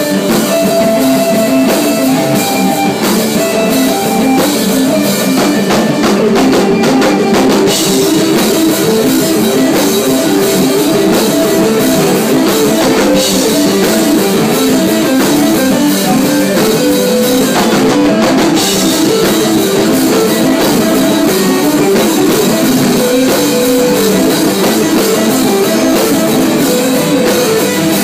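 A rock band playing live in a small room: electric guitars through amplifiers over a drum kit, loud and unbroken with a steady beat.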